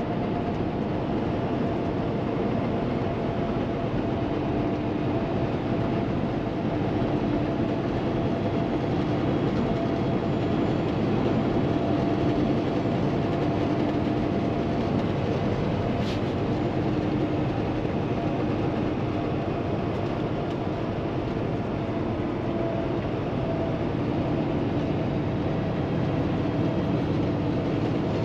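Steady drone inside the cab of a Kenworth T680 semi truck cruising at highway speed: its Paccar MX-13 diesel engine running under light load, mixed with road and tyre noise.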